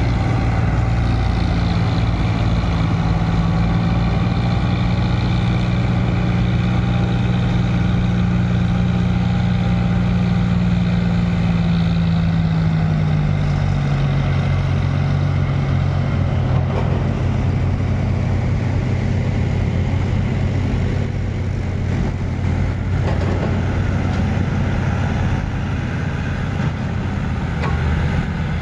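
Tractor diesel engine pulling a trolley heavily loaded with wet soil through mud. A steady drone that drops in pitch about halfway through as the engine slows.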